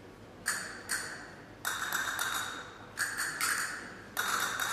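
About six sharp strikes in an irregular rhythm, each ringing on with a bright, steady tone that slowly fades.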